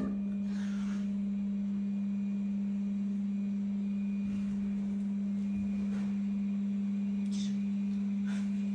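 A steady low hum on one unwavering pitch, with a few faint short rustles.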